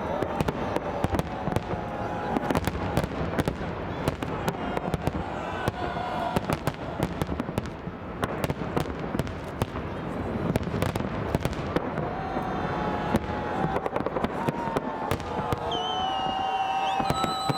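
Fireworks display: a rapid, continuous run of bangs and crackling bursts, with crowd voices underneath and a high whistle starting near the end.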